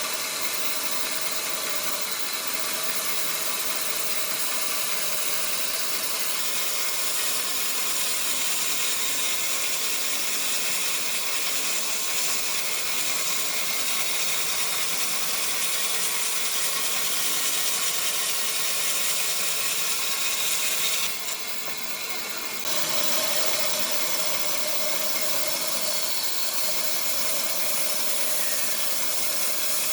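A power tool running steadily on wood, a high-pitched noise that dips for about a second and a half about three-quarters of the way through, then carries on.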